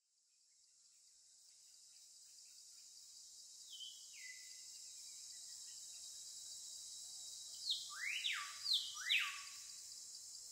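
Faint nature ambience fading in from silence: a steady high hiss like an insect chorus, with a few bird-like chirps, one falling call about four seconds in and a cluster of quick rising calls near the end.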